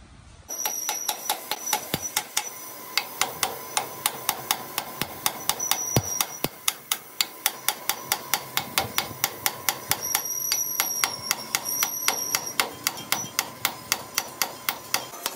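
A long, even run of sharp metallic taps, about three a second, over a faint high steady whine.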